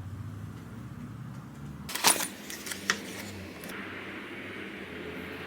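Unboxed tableware clinking: one sharp clink with a brief high ring about two seconds in, a second, lighter clink about a second later, and small scattered clicks between.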